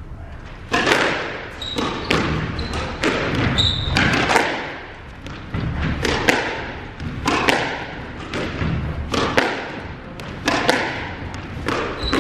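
Squash rally: a string of sharp smacks as the ball is hit by the rackets and strikes the court walls, each echoing in the court, with short squeaks of shoes on the wooden floor.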